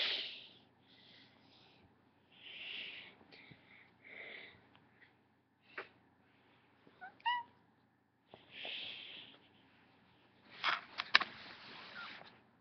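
A cat gives one short, rising meow about seven seconds in. Around it are several short breathy, hiss-like noises and a few sharp clicks.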